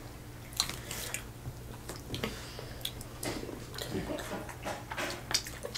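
People chewing and biting into hard-shell tacos, with scattered short crunches and mouth clicks.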